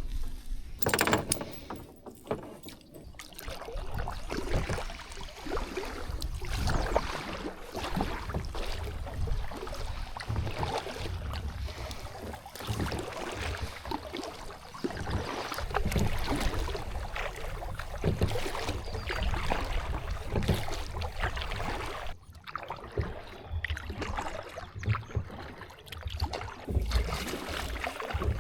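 Kayak on the water with paddle strokes and water splashing, while wind buffets the microphone as a low rumble.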